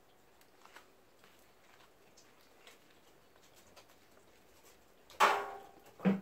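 Kittens scampering on a concrete floor: faint, scattered patter of small paws, then two loud knocks about a second apart near the end, the first ringing briefly.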